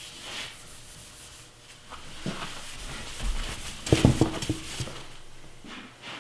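Paste wax being rubbed into a metal table saw top and then wiped with a paper towel: a steady scratchy rubbing, with louder, uneven scrubbing strokes and a few knocks about four seconds in.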